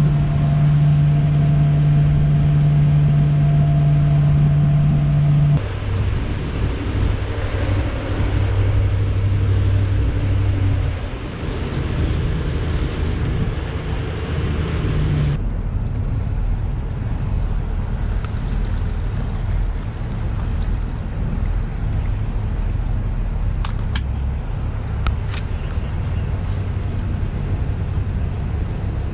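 Carburetted 1989 Mercruiser 350 V8 running at low speed, a steady drone whose pitch steps lower a few times as the boat slows to a crawl. A hiss over it drops away about halfway through, and a few light clicks sound near the end.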